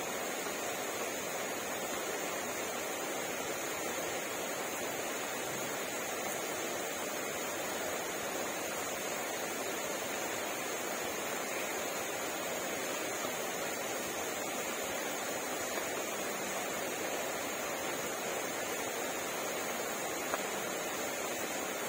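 Steady rain falling, an even hiss with no rise or fall, with one faint click near the end.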